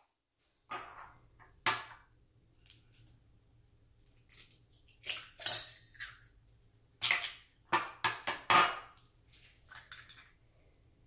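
Scattered sharp taps and clacks as eggs are cracked against the rim of a stainless steel bowl and the shells are pulled apart, with things set down on a stone counter in between.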